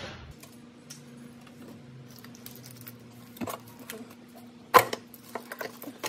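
Valve cover of a Toyota Corolla 1.8 engine being worked loose and lifted off the cylinder head: a few scattered clicks and knocks of hard parts, the loudest a sharp knock about three-quarters of the way through. A steady low hum runs underneath.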